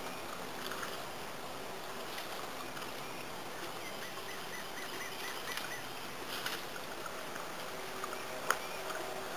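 Steady rush of a shallow creek, with a bird calling a quick run of about eight even notes a few seconds in, and one sharp click near the end.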